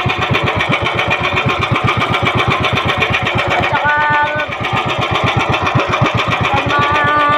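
Small outrigger boat's engine running with a rapid, even throb. A brief voice sounds twice, about four seconds in and near the end.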